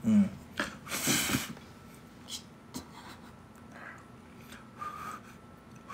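A breath blown over a hot spoonful of food to cool it, heard as one short gust about a second in. Then a few faint clicks of spoon and mouth as the bite is taken.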